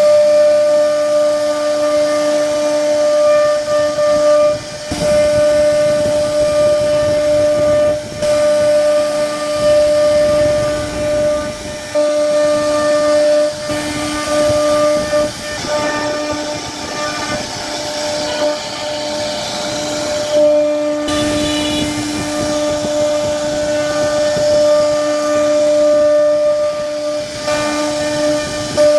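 CNC router spindle whining at a steady high pitch while its bit cuts into a wooden panel, with a hiss of cutting and chips underneath. The sound drops out briefly several times and picks up again.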